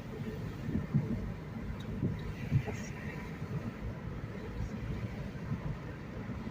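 Low, uneven rumble of a car's engine and road noise heard from inside the cabin, with a brief hiss about two and a half seconds in.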